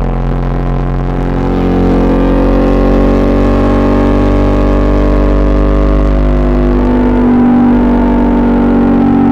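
KTM Duke 200's single-cylinder engine running through an SC Project SC1-R exhaust while riding. The engine note climbs gently, eases back, then holds steady near the end.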